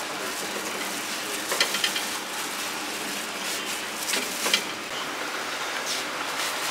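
Steady sizzling of food cooking on a hot surface, with a few sharp metal clicks and clacks from utensils, several together about one and a half seconds in and again about four seconds in.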